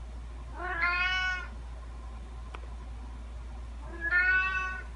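Domestic cat meowing twice, each meow under a second long, the second about three seconds after the first.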